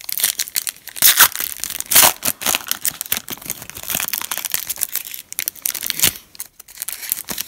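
A foil pack of Panini Certified football trading cards being torn open and its crinkly wrapper pulled away from the cards. It makes a dense run of crackling and tearing, with the loudest rips about one and two seconds in and another near the end.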